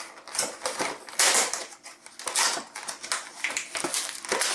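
Stiff retail packaging being pried and pulled open by hand, with irregular crackling, clicking and rustling.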